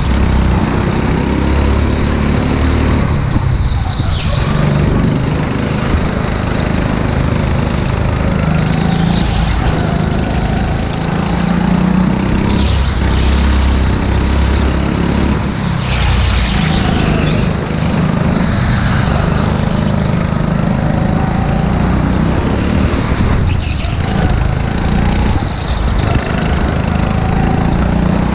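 Go-kart's small engine running hard as the kart laps, heard from onboard: the engine note rises and falls with the throttle, dropping briefly now and then, with road and wind rumble on the kart-mounted camera.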